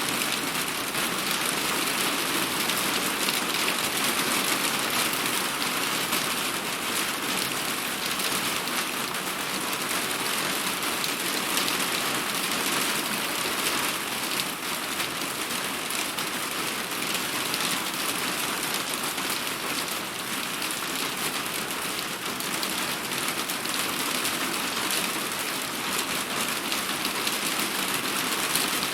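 Heavy rain falling steadily, an even hiss of many drops hitting a surface.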